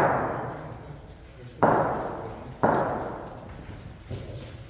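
Sharp knocks of a hard cricket ball being played in the indoor nets: one at the start, another about one and a half seconds in and a third a second later, each ringing on for about a second in the big hall, with a fainter knock near the end.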